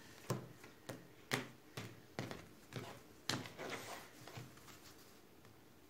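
A tarot deck being shuffled and handled over a wooden tabletop: about eight faint, irregular clicks and taps of cards against each other and the table.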